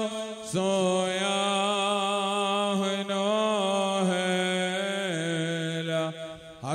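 A man's voice chanting a liturgical prayer into a microphone, in long held notes that slide slowly up and down, with a short break for breath near the end.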